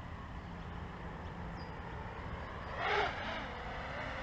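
Warpquad 230 mm quadcopter's KDE2206XF motors and HQ 6045 propellers whining in flight. The whine rises and falls in pitch about three seconds in, its loudest point, over a steady low rumble.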